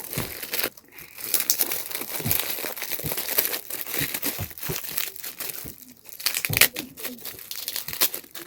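Gift wrapping being opened by hand: irregular crinkling and crackling of wrapping with some tearing, starting and stopping in short bursts.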